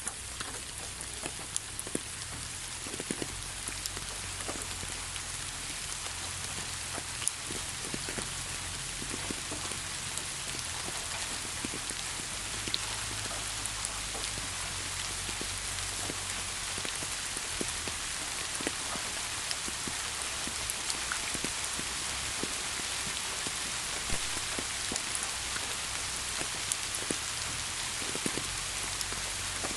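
Steady rain falling: an even hiss with many small, scattered drop ticks and a faint low rumble underneath.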